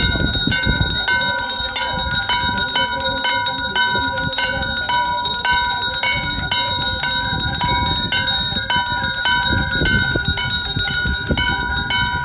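Temple puja bell rung rapidly and continuously, several strikes a second, each strike ringing on with clear, steady tones.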